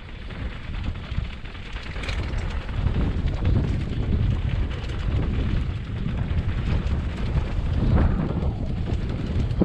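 Wind buffeting the microphone of a camera riding along a narrow, bumpy dirt path, a heavy low rumble mixed with rattles and knocks from the ride over the rough ground. It grows louder from about three seconds in.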